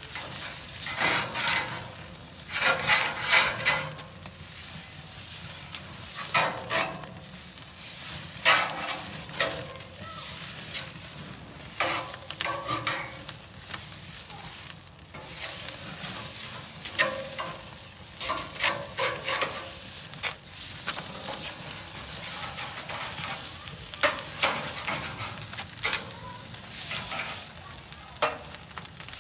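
Sous vide steaks searing on a flaming grill: a continuous sizzle that swells in repeated surges every few seconds as the steaks are shifted with metal tongs.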